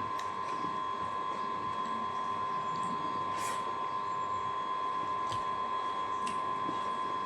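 A steady high-pitched electrical hum, with a few brief soft scraping sounds, one about halfway through.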